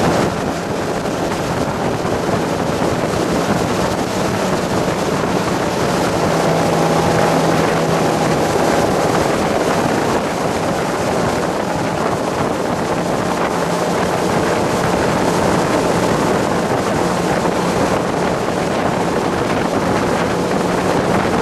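Fire boat's engine running steadily with a constant low hum, under a dense, steady rushing noise.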